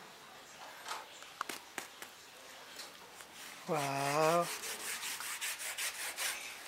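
Quick scrubbing strokes of painting on paper, several a second, in the latter half. A few light clicks come about a second in.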